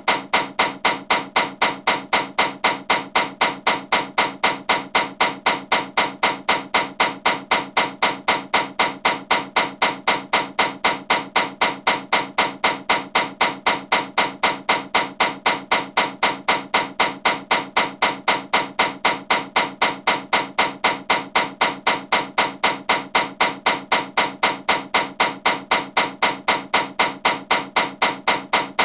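Loud ceiling fan knocking: a sharp, even clack about three times a second, keeping a steady rhythm throughout.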